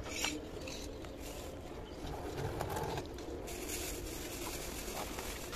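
Rustling and light clicks of dry orchid roots and chunky potting medium being pulled apart by hand, with pigeons cooing in the background.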